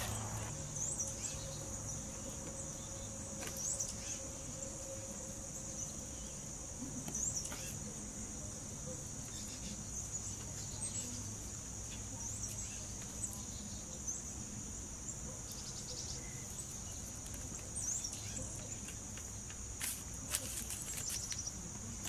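Steady high-pitched insect chorus, with short chirps now and then and a few faint taps and clicks.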